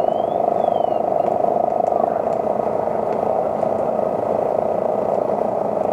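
Steady drone of a fire engine running on the fireground, even and unchanging, with a few faint ticks over it.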